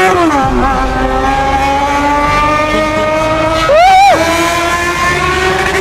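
Motorcycle engine held at high revs, its pitch creeping up slowly, with a quick rev up and back down about four seconds in.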